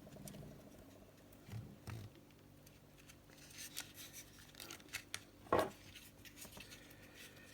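Faint clicks and scraping of small parts being handled, with one louder short knock about five and a half seconds in.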